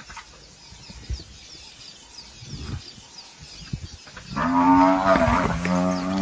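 Cape buffalo bellowing in distress as a lion seizes it: one long, loud, low bellow starting about four seconds in and held to the end. Before it there are faint bird chirps and a few soft thumps.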